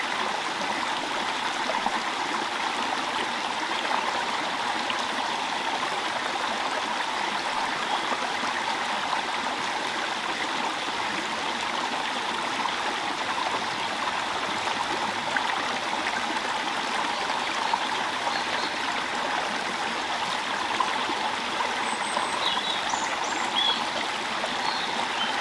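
Small stream running steadily over rocks: an even rushing and trickling of water that holds the same level throughout.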